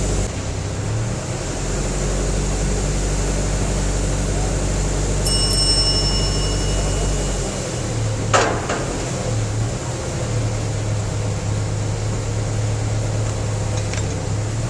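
A vehicle engine idling steadily, with a short high tone about five seconds in and one sharp knock about eight seconds in.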